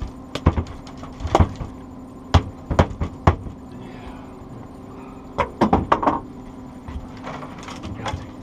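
Sharp knocks and thumps on an aluminum fishing boat as a freshly landed Chinook salmon and the landing net are handled, a few single knocks in the first seconds and a quick cluster around the middle. A steady hum from the boat's outboard motor runs underneath.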